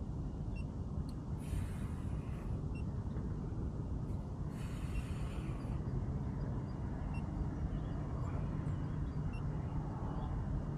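Wind buffeting the microphone: a steady low rumble, with two brief stretches of louder hiss about 1.5 and 4.5 seconds in.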